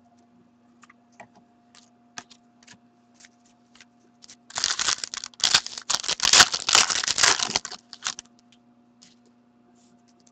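Foil hockey-card pack wrapper handled, torn open and crinkled by hand. A few light clicks and rustles at first, then about three seconds of loud crinkling from about halfway in, fading to small rustles near the end.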